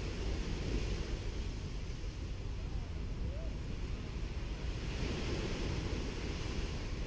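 Small sea waves washing onto a sandy beach: a steady hiss of surf that swells twice, over a low rumble of wind on the microphone.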